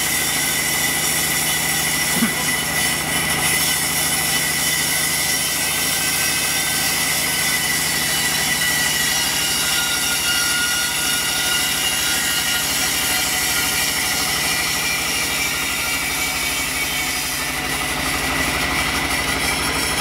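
Large log band saw running steadily as a log is fed through it: an even hum with a high whine. There is one small click about two seconds in.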